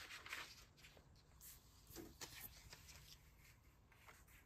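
Faint rustling of glossy magazine pages being handled and turned, a few soft strokes in the first half and quieter toward the end.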